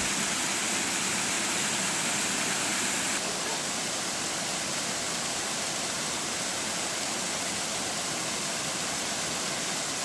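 Small waterfall cascades pouring into a rock-bound plunge pool: a steady rush of splashing water, slightly quieter about three seconds in.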